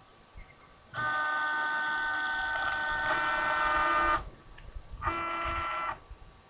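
A horn sounding twice, a steady tone of several pitches: a long blast of about three seconds, then a short one under a second.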